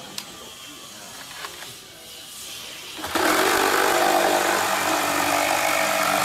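A few light clicks of the tool being handled, then about three seconds in a HiKOKI MultiVolt reciprocating saw, run on its corded AC adapter, starts suddenly and runs steadily, loud, as its blade cuts through a thick wooden board.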